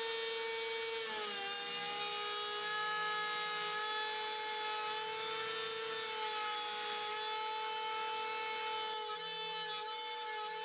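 CNC-mounted trim router spinning a flat surfacing bit as it skims an MDF spoilerboard, with a steady, noisy high whine over cutting hiss. The pitch dips slightly about a second in, then holds steady.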